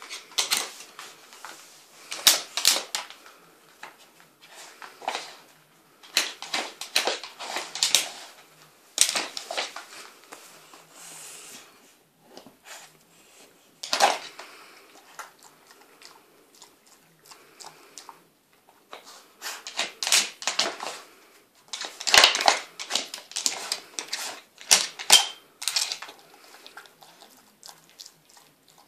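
Blocks of a Nina Ottosson wooden dog puzzle board clacking and sliding as a Cardigan Welsh Corgi pushes them with its nose, in irregular runs of quick clicks with short pauses between them.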